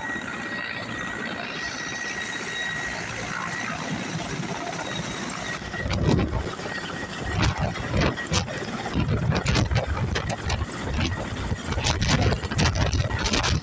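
Mil Mi-8-family military transport helicopter landing close by: steady turbine and rotor noise with a thin high whine. From about six seconds in, its rotor downwash buffets the microphone in heavy, irregular gusts.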